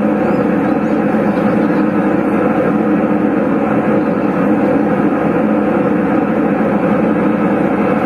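A loud, steady mechanical drone with no breaks or changes in level.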